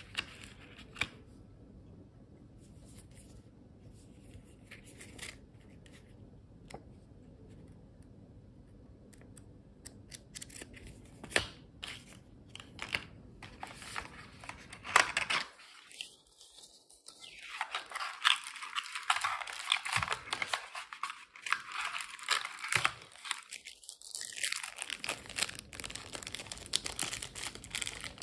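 Product packaging being handled and opened: a few light taps and clicks, then from about fifteen seconds in, steady crinkling and tearing of the wrapping.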